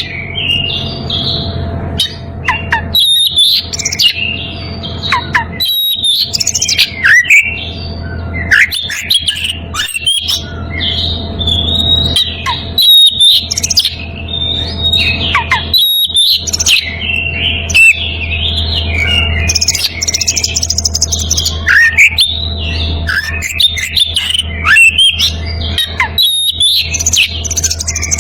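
Oriental magpie-robin (kacer) in breeding condition singing a continuous run of varied, fast-changing whistles and chirps with brief pauses, the challenge song it uses to call a rival. A steady low hum runs underneath.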